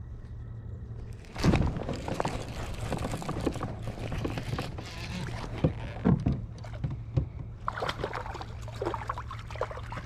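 Water sloshing and trickling against a kayak's hull, with small clicks and knocks, starting suddenly about a second and a half in.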